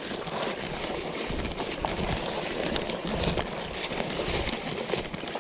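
Footsteps crunching and dry grass and brush rustling as a person pushes through tall dead vegetation, with many small crackles and snaps throughout.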